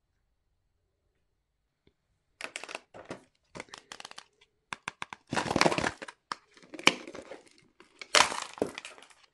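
Large plastic surprise egg being handled and pried open at its seam: a run of sharp cracks, snaps and crinkles starting about two and a half seconds in, loudest in two bursts near the middle and near the end.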